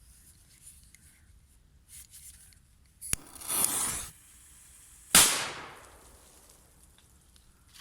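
Firecrackers going off: a sharp crack about three seconds in, followed by about a second of rushing noise, then a louder single bang about two seconds later that dies away over about a second.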